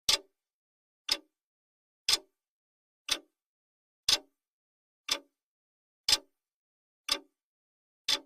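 Clock-tick sound effect of a countdown timer: one short, sharp tick each second, nine in all, with every other tick slightly weaker, and dead silence between ticks.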